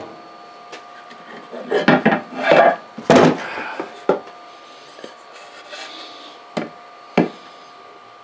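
A wooden board and its weight blocks being handled and lifted off a bench rig: rough wood-on-wood scraping and rubbing a couple of seconds in, then several separate sharp knocks of wood.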